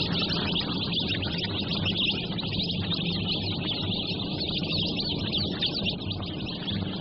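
A crowd of day-old chicks peeping continuously, many high thin cheeps overlapping, over a low steady hum.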